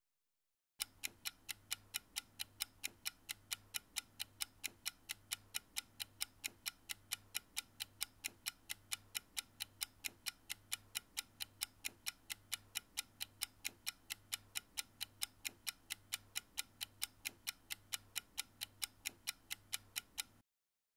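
Clock-ticking countdown sound effect: a steady, even tick-tock that starts about a second in and stops shortly before the end, timing the answer pause.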